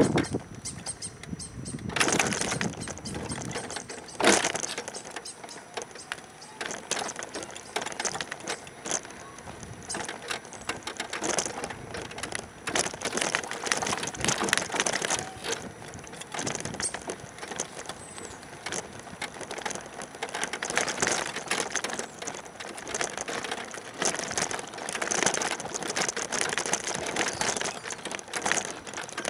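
Wheelchair rolling over a cracked, uneven concrete sidewalk: continuous rattling and clicking, with sharper jolts about two seconds and about four seconds in.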